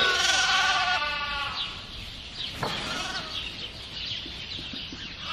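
Sheep bleating: one long, wavering bleat over the first second or so, then a shorter, fainter bleat about three seconds in.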